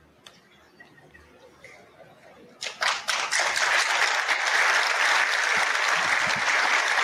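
Large audience applauding. A few scattered claps come about two and a half seconds in and quickly fill out into steady applause.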